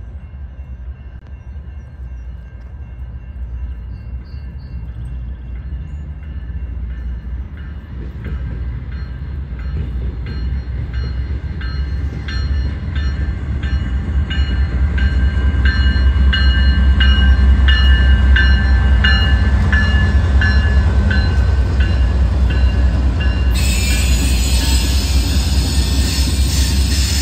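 Norfolk Southern diesel locomotive and its geometry train approaching and rolling past close by. The engine rumble and rail noise grow steadily louder to a peak a little past the middle. High steady tones pulse in a regular beat as the train nears, and a hiss of wheel and rail noise jumps up near the end as the cars go by.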